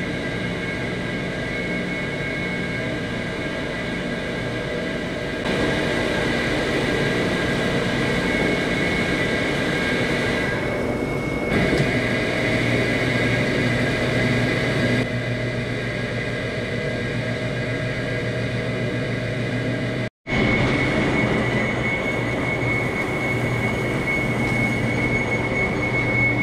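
Overhead silage feed conveyors running, a steady mechanical rumble with a high squeal and a low hum. The sound changes abruptly several times, with a brief dropout about 20 seconds in.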